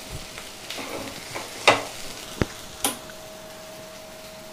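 Spatula stirring and scraping dry-roasted fish roe masala in a nonstick frying pan, the mix still sizzling softly, with a few sharp scrapes and clicks of the spatula against the pan, the loudest about a second and a half in.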